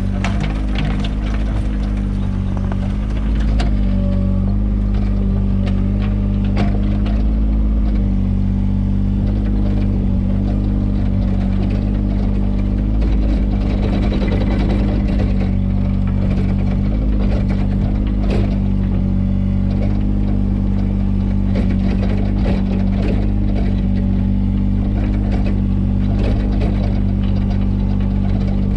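Mini excavator's engine running steadily at working speed, with scattered short knocks and clanks from the machine at work.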